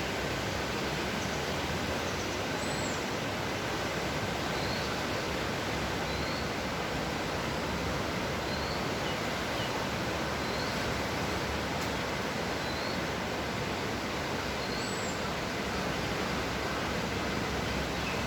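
Steady roar of a swollen forest flood stream rushing over its banks, with a small bird giving short, rising chirps about every two seconds.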